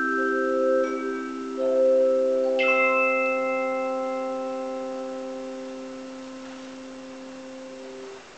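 Tone chimes (handchimes) ringing the closing chord of a hymn. New notes are struck about one and a half and two and a half seconds in, then the chord sustains and slowly fades before the chimes are damped all at once near the end.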